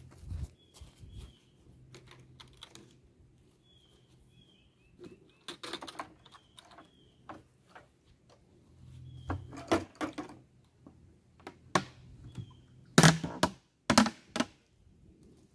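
Plastic buckets knocking and their wire handles clicking as they are carried in and set down. The loudest knocks come near the end, as the lid is pulled off a 5-gallon plastic bucket.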